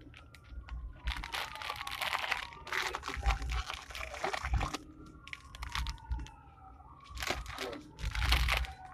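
Plastic shopping bag crinkling and rustling in several bursts as it is carried. A faint tone glides downward twice in the background.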